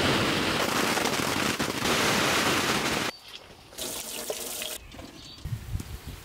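A loud, steady rushing noise that cuts off suddenly about three seconds in. After a short lull, mulberry juice streams from a squeezed cloth bag into a metal bowl for about a second.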